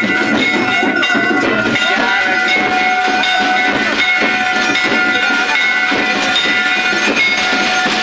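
Loud ritual music at a folk-deity jaag: several steady high tones held without a break, over a dense run of rapid clattering beats.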